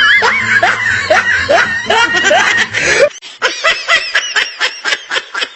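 A quick, rhythmic string of laughter, one 'ha' after another. About three seconds in it cuts abruptly to a thinner, higher run of faster laugh pulses.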